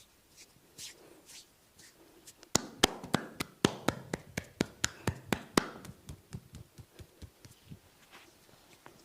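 Hands rubbing over skin, then a fast run of sharp massage slaps with the hands, about four a second, starting about two and a half seconds in and growing weaker toward the end.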